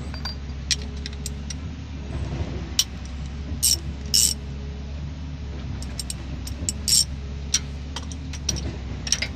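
Metal tools clinking and clicking against engine parts in a string of sharp, irregular strikes, over a steady low drone of a running engine.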